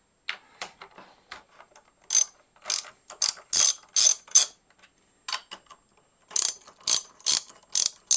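Hand socket ratchet wrench clicking in short bursts, one for each back-swing of the handle, as M8 terminal nuts on a bus bar are loosened. The bursts come about every half second in two runs, with a pause of about a second and a half between them.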